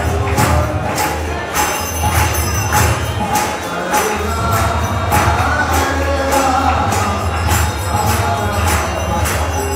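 Devotional kirtan: voices chanting together over hand cymbals (kartals) that clash in a steady beat, about two strokes a second.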